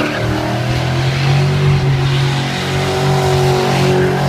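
Dodge Challenger SRT8's 6.4-litre HEMI V8 held at steady high revs during a burnout donut, the rear tyres spinning and hissing on the asphalt.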